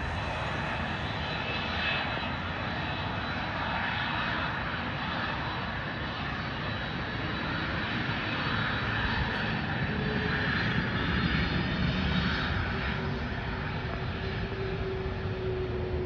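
Boeing 767-300 freighter's twin jet engines running on the runway: a steady noise with a thin, high whine over it.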